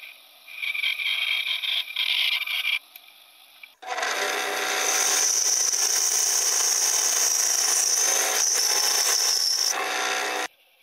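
Band saw cutting through small wooden blocks in two passes: a shorter cut from about half a second in to nearly 3 s, then, after a brief lull, a longer steady cut with a high whine that stops abruptly near the end.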